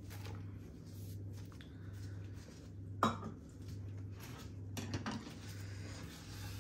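A kitchen utensil knocking against a dish, with one sharp ringing clink about three seconds in, over a low steady hum.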